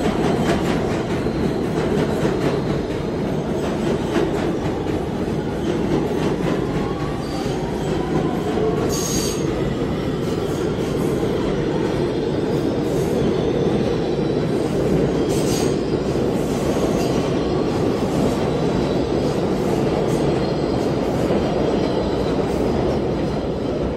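Subway train running through the station with a steady rumble of the cars, and its wheels squealing on the rails in gliding tones through the middle, with two short sharp high squeaks.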